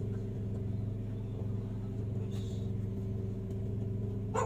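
A small engine running steadily at constant speed, a low even drone with overtones.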